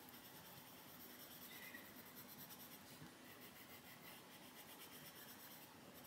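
Faint sound of a Faber-Castell Polychromos coloured pencil shading on paper.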